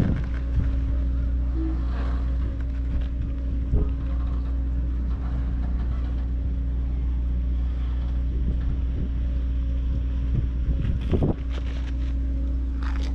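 A motor's steady low hum at a constant pitch, typical of a boat engine idling, with a few brief rustles over it, the largest about eleven seconds in.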